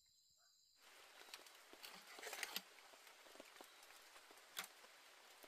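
Faint clinks, knocks and rustles of an aluminium camping pot and utensils being handled on a camp table, over a quiet night-forest hiss. The first second is near silence, then scattered sharp knocks start, the loudest about halfway through.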